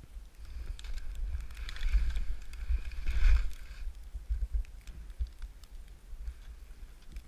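Skis swishing through deep powder snow, loudest about two to three seconds in, then fading as the skier slows to a stop. A low rumble of wind on the helmet camera's microphone runs underneath.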